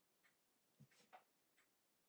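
Near silence, with two faint clicks from small screws and a screwdriver being handled on the laptop's plastic bottom cover, one a little before and one just after a second in.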